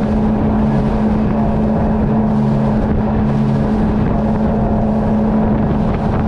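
Outboard motor of a small flats boat, the 70 hp Yamaha, running steadily as the boat moves, with a constant hum and wind on the microphone.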